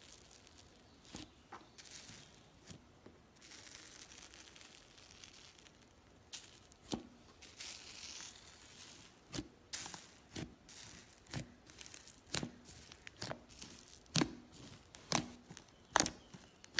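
Bubbly foam slime being pressed and squished by hand: a fine crackling of tiny bubbles popping for the first several seconds, then sharp wet pops about once or twice a second, getting louder toward the end.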